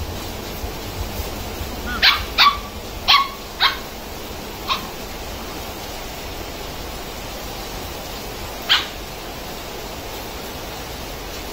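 Two puppies play-fighting, giving short sharp barks and yips: a quick run of five between about two and five seconds in, and one more later on.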